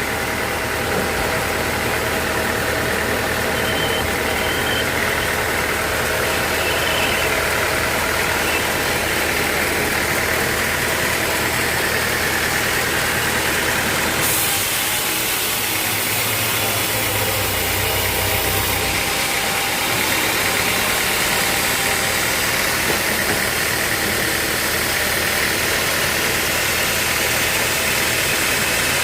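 Sawmill machinery running steadily, with a change in its sound about halfway through.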